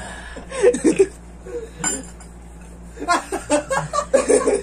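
A group of young men laughing and chuckling, with one sharp clink of tableware about two seconds in.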